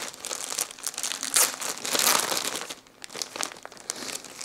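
Clear plastic packaging bag crinkling as it is handled and opened by hand, loudest around the middle, with a short lull about three seconds in.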